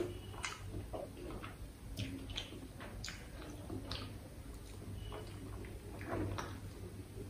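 Close-miked chewing and mouth sounds of someone eating with their fingers: irregular soft wet clicks and smacks, roughly one or two a second.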